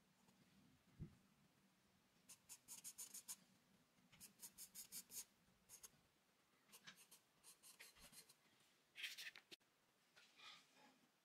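Charcoal pencil scratching on drawing paper: several short runs of quick, rapid strokes with pauses between them. The strongest run comes about nine seconds in.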